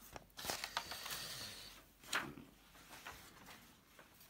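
Sheets of paper rustling as they are handled, with a couple of light knocks about half a second and two seconds in, then quieter.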